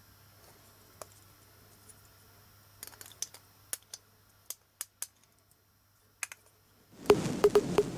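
Scattered light clicks and taps, as of small plastic toys being handled, turning into a louder, dense run of rapid clicking and rustling near the end.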